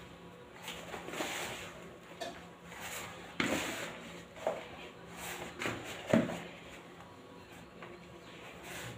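Dough being kneaded by hand in a plastic bowl: irregular thuds and squelches as the fist presses the dough down and the bowl knocks on the counter, the loudest about three and a half seconds in and again near six seconds.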